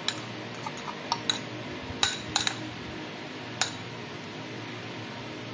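Metal fork clinking against a small glass bowl while scraping out a mixture, about eight sharp clinks over the first four seconds, then only a steady low background hum.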